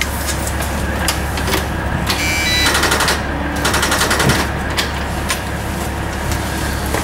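School bus engine idling with a steady low rumble, heard from the driver's seat, with scattered clicks and a rapid clattering between about two and four and a half seconds in.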